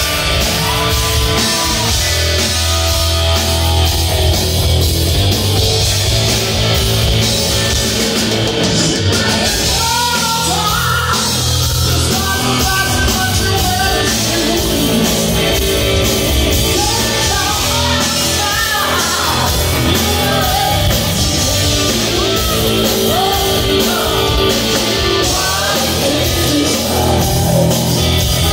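Hard rock band playing live and loud, heard from the audience: drum kit, bass guitar and electric guitar, with a melody line bending in pitch through the middle.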